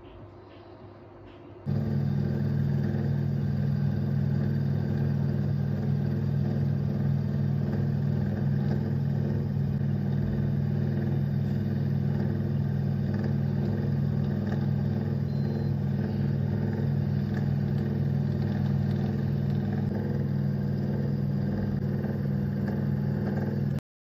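A steady mechanical hum with a constant low drone. It starts suddenly about two seconds in and cuts off suddenly near the end.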